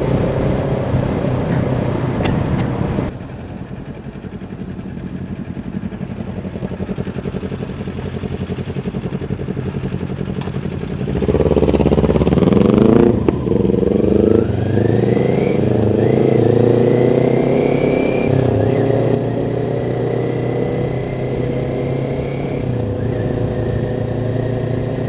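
Kawasaki Ninja 400 parallel-twin engine running through an Akrapovic slip-on exhaust while being ridden. The engine note drops back about three seconds in. Near the middle it rises in pitch under acceleration, dips briefly at a gear change, climbs again and then holds steady at cruise.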